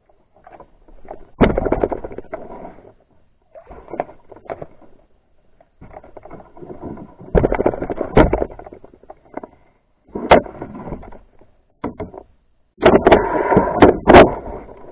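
Canoe handling sounds: water splashing and knocks against the hull in irregular bursts, with sharp clicks, loudest near the end, while a hooked northern pike is fought toward shore.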